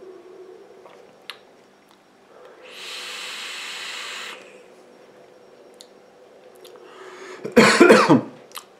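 An electronic cigarette being drawn on: a steady hiss of air and vapour pulled through the device for just under two seconds. Near the end comes a loud, breathy exhale of the vapour with some voice in it.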